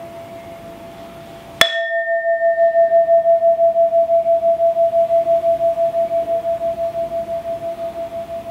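A resonant sculpted vessel struck once about a second and a half in, sharp attack then ringing on one clear, steady tone with a regular pulsing waver. Its higher overtones die away within a couple of seconds while the main tone keeps sounding, slowly fading. Before the strike, the fading ring of the previous hit is heard.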